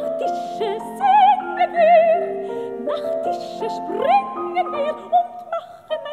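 Soprano singing a German art song with strong vibrato, with piano accompaniment; her voice slides upward about four seconds in, over held piano chords.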